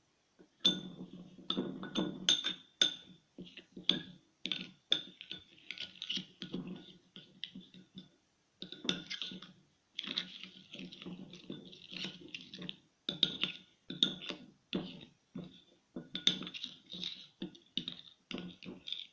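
A spoon stirring and scraping a mixture of ground coffee and lemon juice in a bowl, in short irregular strokes and clinks.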